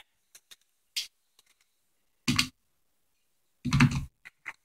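A plastic mailer bag being handled and slit open with a knife: scattered light clicks and taps, with two short louder rustles about two seconds in and near the end.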